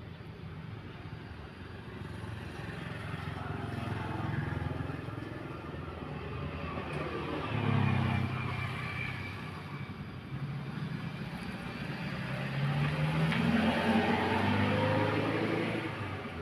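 Vehicle engine running, its pitch rising and falling twice, loudest about halfway through and again near the end.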